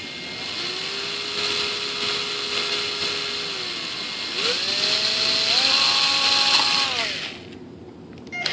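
Small electric drill with a thin bit drilling, run in two bursts: a steady lower-speed run, then a faster run that steps up in speed before winding down and stopping.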